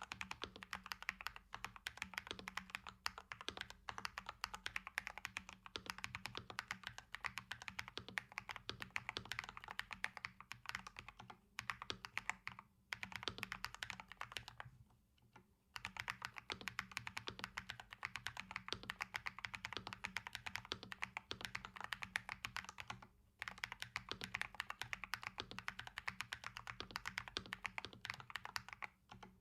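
Fast, continuous typing on a KBD67 Lite mechanical keyboard with Holy Panda tactile switches, keystroke after keystroke with a few short pauses, the longest about fifteen seconds in.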